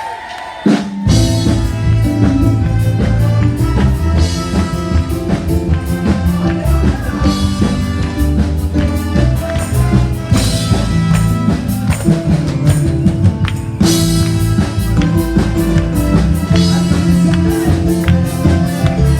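A band starts playing about a second in: loud music with a steady drum-kit beat, bass and other instruments.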